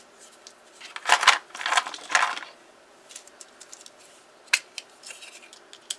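Small plastic doll-scale kitchen containers handled by hand: light clicking and clattering, with a burst of rattling about a second in and a single sharp click a little past the middle.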